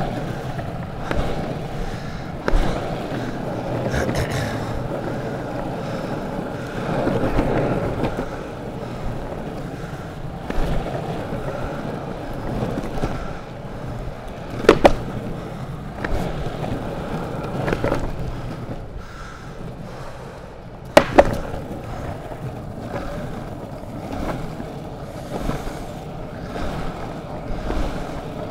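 Longboard wheels rolling over pavement in a steady, uneven rumble, with scattered small knocks and two loud, sharp clacks, about fifteen and twenty-one seconds in.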